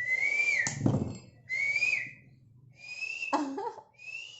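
A person whistling a bird-like call: four short notes, each sliding up and then dipping, with a sharp knock about a second in.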